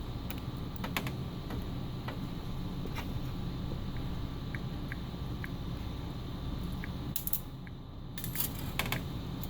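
Light metallic clicks and taps from small parts being handled as a slush machine's gear motor is taken apart and its washers pulled off, over a steady low hum. The clicks are scattered and bunch together near the end.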